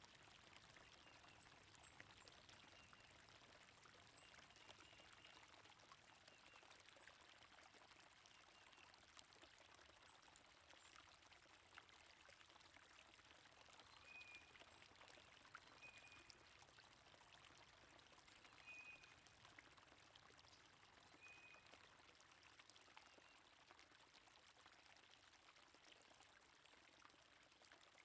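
Faint, steady flow of running water, with brief, scattered bird chirps over it; a short note repeats four times in the middle.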